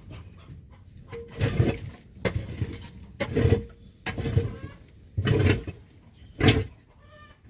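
A series of dull thumps, about one a second, with a short pitched call just before the end.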